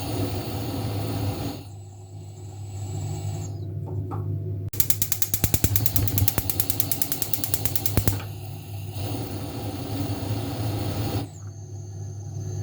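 Kitchen stove controls making rapid, even mechanical clicking for about three seconds over a steady low hum and hiss.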